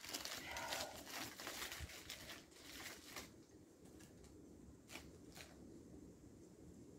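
Faint crinkling and rustling of a plastic bag being handled for about three seconds, then two light clicks.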